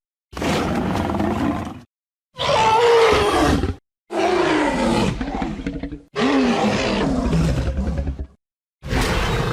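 A run of cartoon dinosaur (sharptooth) roar and growl sound effects, four in a row with a fifth starting near the end, each one to two seconds long and cut off by a short silence; several slide downward in pitch. They are layered designed roars built from mixed animal growls and bellows.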